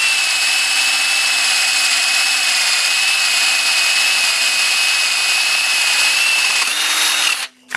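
Power drill with a 9/16-inch spade bit boring a through hole in a wooden pick handle, running steadily at speed with a high whine, then stopping suddenly near the end.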